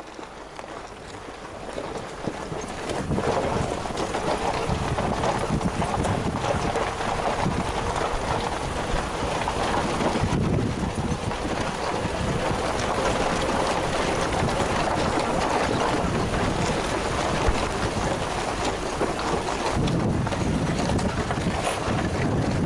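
Off-road vehicle driving up an unpaved mountain track, a steady rushing of wind on the microphone mixed with engine and tyre noise, building up over the first few seconds.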